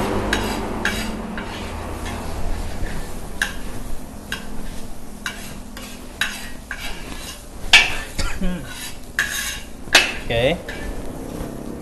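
A metal spatula scraping and clanking against a wok as fried rice is stir-fried fast over a high flame. It makes an irregular run of scrapes and knocks, the hardest strikes coming about eight and ten seconds in.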